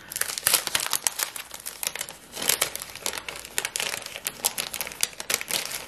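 Loose hole-punched personal-size planner insert sheets rustling as they are handled, separated and laid out in stacks, an irregular run of papery crackles and rustles.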